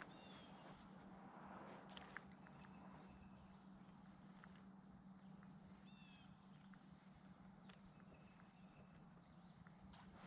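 Near silence: quiet outdoor ambience with a faint steady high hiss and low hum. Two brief faint chirps come near the start and about six seconds in.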